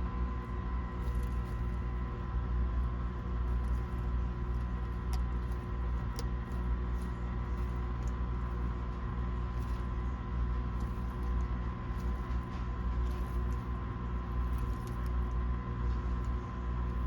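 Steady machine hum with several held tones, and faint scattered small clicks and taps over it.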